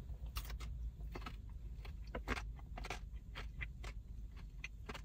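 Crunching and chewing of a hard, crispy, syrup-soaked sweet: irregular crisp clicks, with a low steady hum underneath.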